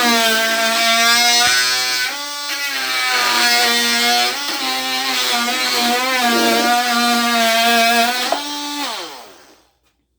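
Ryobi brushed oscillating multi-tool with a wood blade cutting into oak: a steady high buzzing whine whose pitch dips twice as the blade loads up in the cut. Near the end it is switched off and winds down, the pitch falling away to silence.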